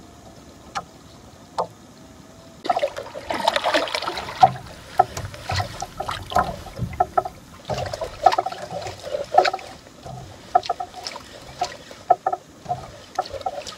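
Water lapping and splashing against the hull of a small outrigger boat. The irregular bursts start about three seconds in and carry scattered sharp clicks and knocks.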